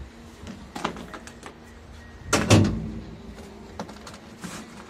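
Knocks and clanks from a Ferris wheel's open metal gondola as it is boarded. There are light clicks at first, then one loud heavy thump about halfway through, over a faint steady low hum.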